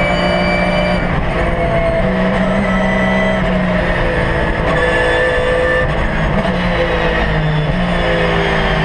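Porsche 911 GT3 R racing engine heard from inside the cockpit at high speed. Its note steps and slides in pitch several times as the car comes off about 200 km/h and changes down through the gears. Steady road and rain noise sits underneath.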